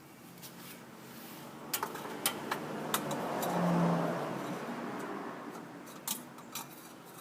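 A few sharp, irregular metal clicks as a wrench is set on and turned against a newly fitted spin-on oil filter, tightening it about half a turn past hand-tight. A broad noise swells up to a peak a few seconds in and fades away, like a vehicle passing by.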